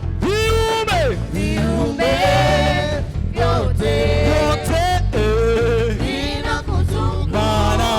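Gospel praise music: voices singing long, sliding notes over a band with a steady bass line.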